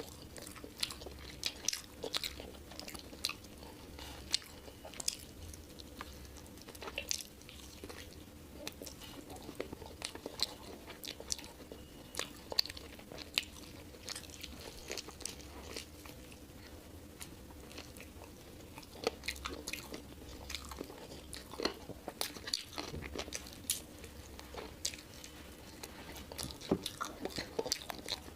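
Close-miked eating sounds of a person chewing rice with beef curry and chicken stew: a run of irregular, quick mouth clicks and smacks with no pause.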